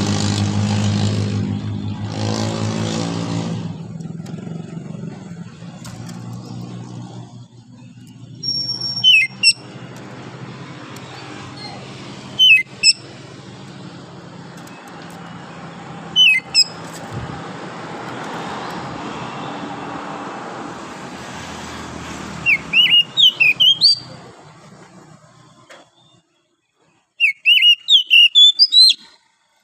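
Oriental magpie-robin singing in short, loud, chirping phrases separated by pauses of a few seconds, with the last phrases being the busiest. A motor vehicle's engine drones loudly at the start, then fades into a steady background hum.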